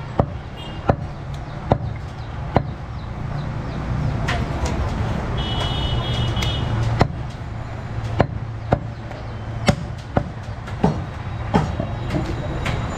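Goat meat being chopped: about a dozen sharp blade strokes at uneven intervals, over a steady low background hum of market and traffic noise.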